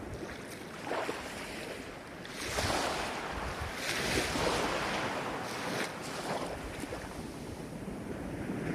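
Ocean waves breaking and washing up the shore, swelling and easing over a few seconds, with wind on the microphone.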